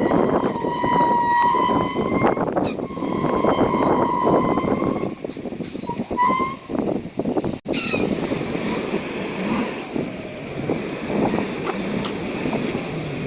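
A vehicle horn sounds two long blasts and a short toot over rumbling engine and traffic noise. About two thirds of the way in the sound cuts to a steady vehicle rumble.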